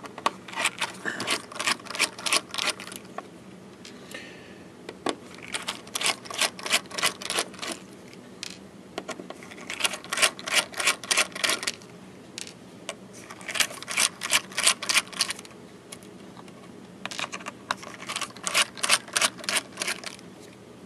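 Screwdriver backing out a hard drive's cover screws, heard as rapid clicking, about six clicks a second. It comes in five bursts of two to three seconds each, with short pauses between.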